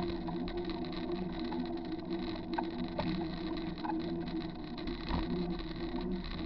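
Steady rolling and wind noise of a bicycle ride on a wet paved trail, heard through a bike-mounted camera, with a low drone and a few light clicks.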